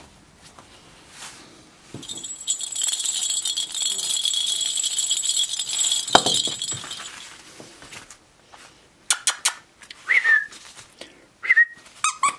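A plastic lattice jingle ball, with a bell inside, rattles and jingles for about five seconds as it is shaken and rolled, with a thump near the end. Later come a few light clicks and two short, high squeaks.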